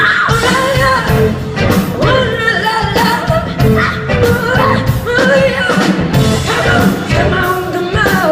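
Live rock band music: a full band playing with a steady drum beat, with a melodic lead line bending over it.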